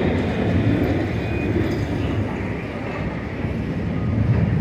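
Tracked demolition excavator's diesel engine running as its grapple works through a debris pile: a steady low rumble, easing slightly near the end.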